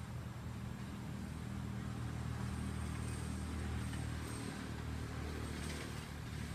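Steady low engine-like hum, as of a motor vehicle running, with no speech over it.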